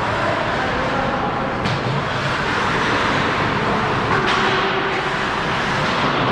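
Steady rink noise of an ice hockey game: the hiss and scrape of skates on ice, with a couple of sharp stick, puck or board knocks, one about a second and a half in and another about four seconds in.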